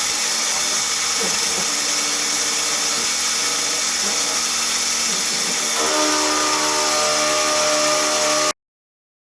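Mini mill spindle running at about 2500 rpm while the cutter takes a 50 thou facing pass across an aluminium block: a steady, loud, hissy machining noise. A ringing set of steady tones joins about six seconds in. The sound starts and stops abruptly.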